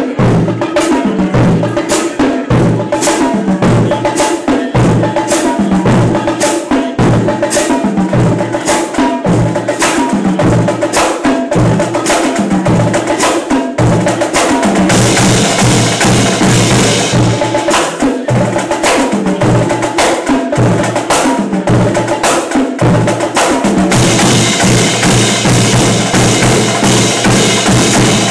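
Drumline playing a dense, loud cadence of snare and bass drum strokes with crash cymbals. The cymbals ring out in a sustained wash about halfway through and again near the end.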